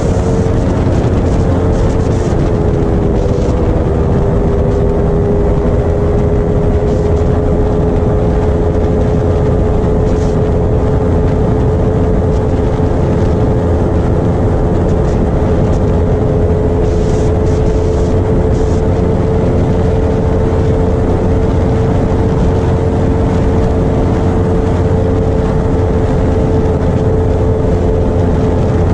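Motorcycle engine running at high revs at highway speed, a steady drone with heavy wind rush on the microphone; the engine note drops slightly about two to three seconds in, then holds steady.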